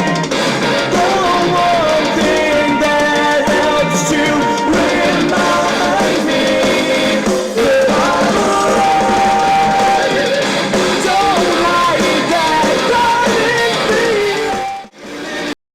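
A rock song with singing played at full volume through an Antec AMP SP1 portable Bluetooth speaker. It stops abruptly near the end.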